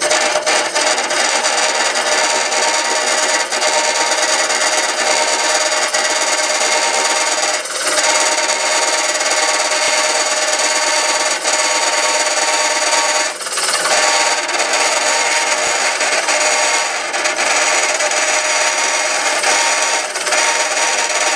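Hollowing cutter scraping inside a spinning poplar hollow form on a wood lathe: a steady rasping cut with a steady whine, easing off briefly twice as the cut lets up. The chatter comes from the piece being turned off-centre and from the wood having moved after sitting overnight.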